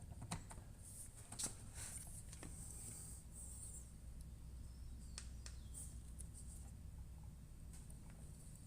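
A few faint, scattered clicks and light taps, the loudest about a second and a half in, over a low steady hum.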